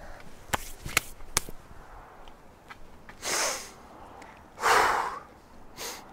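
A man breathing out heavily: two strong breaths about a second and a half apart, the second louder, then a smaller one near the end. A few light clicks come in the first second and a half.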